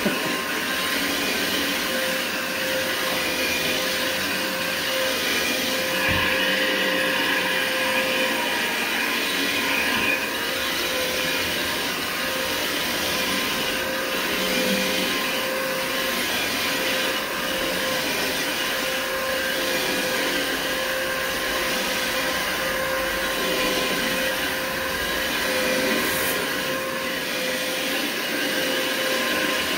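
Electric carpet agitator machine running steadily with a constant motor hum while its brush scrubs the carpet. The sound swells slightly about every second and a half as the machine is pushed back and forth.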